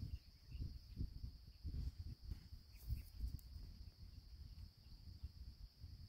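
Steady high chirring of insects, over an irregular low rumble of wind on the microphone.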